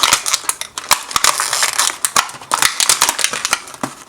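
Small hard-plastic transforming toy figures being handled, making many quick, irregular clicks and rattles with a rustle underneath.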